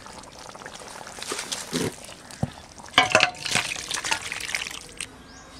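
Thick, cooked country-chicken and green jackfruit curry sloshing wetly as it is stirred and scooped in the pot, with a few sharp clicks of the utensil about two and three seconds in.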